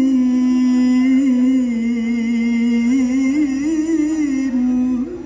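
Male Quran reciter's voice in melodic mujawwad recitation, holding one long drawn-out note with small wavering ornaments, ending about five seconds in.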